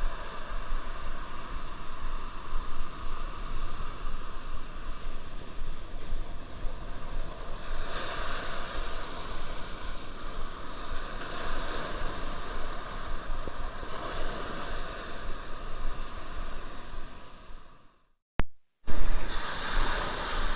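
Surf breaking and washing up a sandy beach, swelling in surges every few seconds, with wind on the microphone. Near the end the sound cuts out completely for under a second, then comes back with a short, loud burst.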